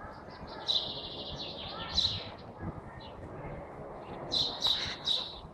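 Small birds chirping in several runs of high notes, the busiest near the end.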